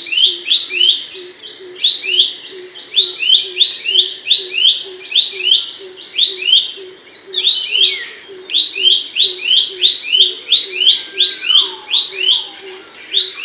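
A pelanduk semak (Horsfield's babbler) singing a loud, sharp, rapid song of high paired notes, repeated steadily with a short break midway. A faint, even low pulsing runs underneath, and a few lower falling whistles come near the end.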